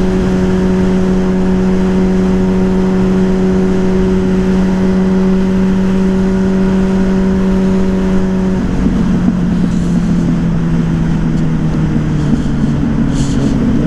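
Yamaha Fazer 600's inline-four engine running at a steady cruising speed through a WR slip-on exhaust, with wind rush. About eight and a half seconds in, the throttle closes and the engine note drops, then keeps falling slowly as the bike slows.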